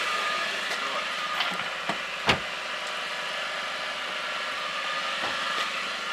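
A 1995 Suzuki Vitara's 1.6 petrol engine idling steadily, with a single short knock about two seconds in.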